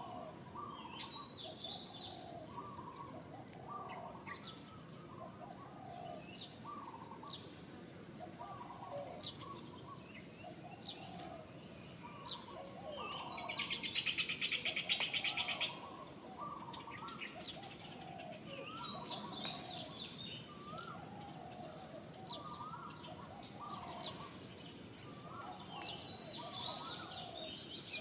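Birds singing and calling: one repeats a short low call about once a second, with scattered high chirps over it. About halfway through, a louder buzzing trill runs for a couple of seconds.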